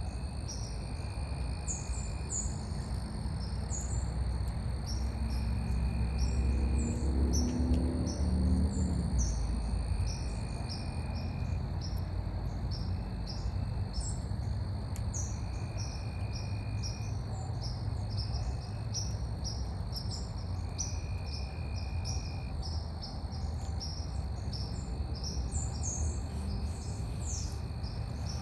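Outdoor ambience: many birds chirping in quick succession over a steady high insect drone, with short repeated calls every second or two. A low rumble underneath grows louder between about six and nine seconds in, then settles.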